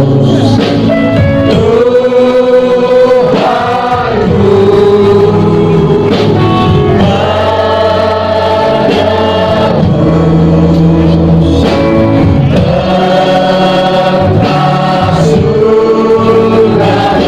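Choral music: a choir singing long held notes over a steady low accompaniment.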